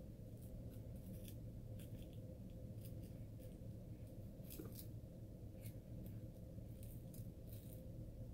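Baby chewing a peanut butter puff and sucking on his fingers: soft, irregular wet mouth clicks and smacks over a steady low hum.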